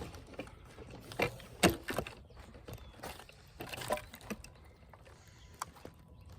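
Irregular knocks and clunks from handling a camera tripod and a wheelchair loaded with firewood, bunched in the first four seconds with a few fainter ones later.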